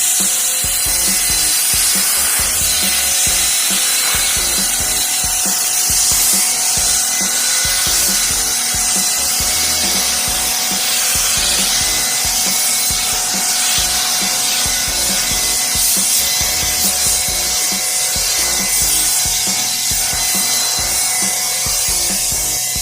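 Sun Joe SPX6001C-XR 40-volt cordless pressure washer spraying at its maximum pressure setting: a steady hiss of the water jet with the fixed whine of its brushless electric motor and pump.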